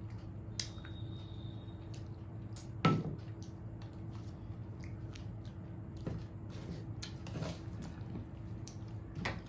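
Dal being served onto rice and mixed in, with soft wet squelches and small clicks and one sharper click about three seconds in, as of a spoon on the dish. A faint steady hum runs underneath.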